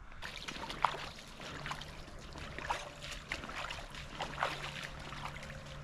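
Wading boots sloshing through a shallow creek, with irregular splashes over the steady trickle of the moving water.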